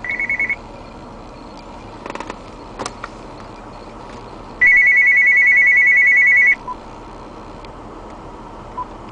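Electronic trilling ring tone sounding during Bluetooth pairing between a phone and a car head unit: a half-second burst at the start, then a louder two-second ring about four and a half seconds in. A few light clicks fall between them.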